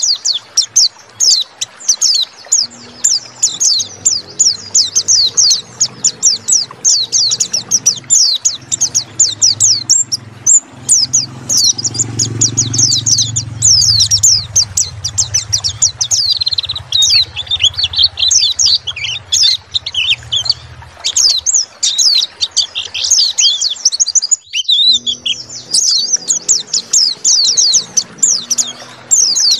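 White-eyes (pleci) singing a fast, unbroken high twittering song of rapid chirps, breaking off briefly about three quarters of the way through. A low hum runs beneath it through the first two thirds.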